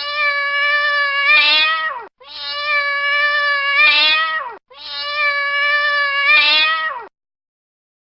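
Domestic cat giving a loud, long drawn-out yowling meow three times. Each call lasts about two seconds, wavers and rises in pitch near its end, then drops away. The three calls are identical copies of one recording, and the sound stops about a second before the end.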